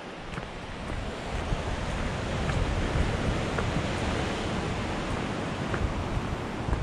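Steady rush of sea surf and wind on the coast, growing louder about a second in and heavy in the low end, with faint light ticks of footsteps on the walking track.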